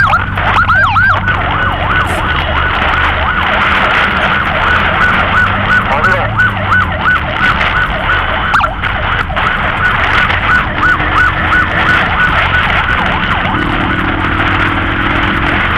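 Electronic emergency-vehicle siren yelping, its pitch rising and falling quickly about three times a second, with larger, slower sweeps in the first second. A steady engine hum runs beneath it.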